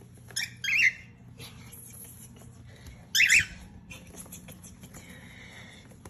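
Cockatiels squawking angrily: two short harsh screeches under a second in, then a louder one about three seconds in, with faint chirps between.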